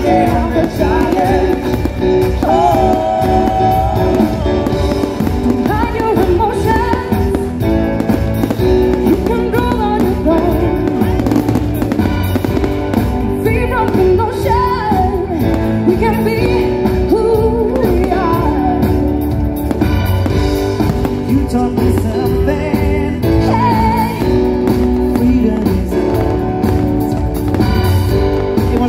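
A song with a singer and a steady beat plays throughout, with firework bursts faintly underneath.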